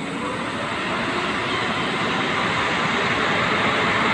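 ZSSK class 350 electric locomotive pulling a passenger train out of the station, moving toward the listener. Its running noise grows steadily louder as it approaches.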